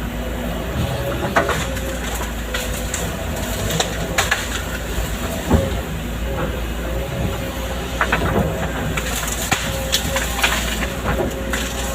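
Hydraulic excavator running steadily at work, with a constant low engine rumble, a steady whine and scattered knocks and clicks.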